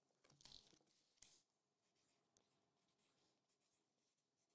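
Near silence, with a couple of faint clicks and the faint scratch of a pen writing on paper.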